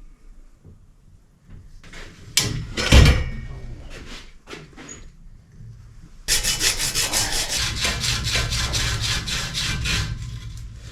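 A metal clank with a short ring about two and a half seconds in, then about four seconds of rapid back-and-forth rasping on metal pipe, some eight strokes a second, as copper line is worked by hand during boiler pipe fitting.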